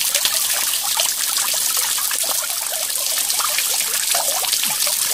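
Homemade garden fountain: water from the nozzle's jet falls back and splashes steadily onto the water in a large metal basin.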